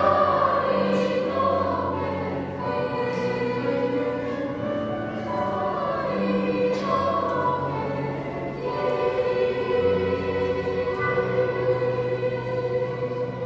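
Children's and youth choir singing in parts, closing a piece with long held chords in the last few seconds.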